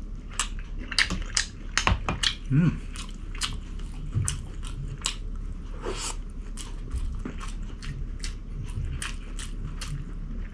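A person eating close to the microphone: chewing and biting, with many sharp wet mouth clicks and crunches coming a few times a second.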